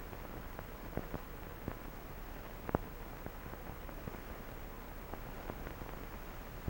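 Steady hiss with scattered crackles and pops, the surface noise of an old optical film soundtrack, with one louder pop near the middle.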